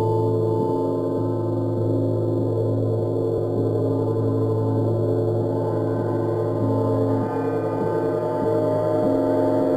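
Large hanging gong played with soft felt mallets: a steady, sustained wash of many overlapping ringing tones, kept going by soft repeated strokes.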